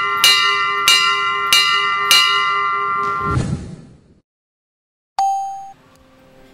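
School bell struck repeatedly, about four strikes a little over half a second apart, each ringing on into the next, signalling the start of class. It cuts off suddenly about three and a half seconds in. After a second of silence comes a single short high ding, then faint steady tones.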